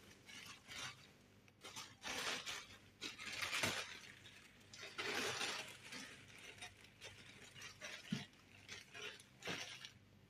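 Faint kitchen handling sounds as raisins are added to a saucepan: several short rustling bursts, with a few light clinks and knocks near the end.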